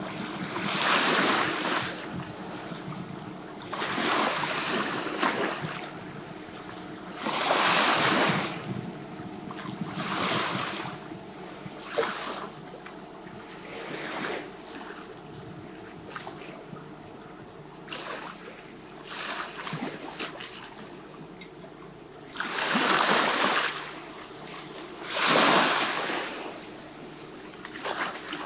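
Sea waves washing in, a surge of surf every two to four seconds, over a faint steady hum.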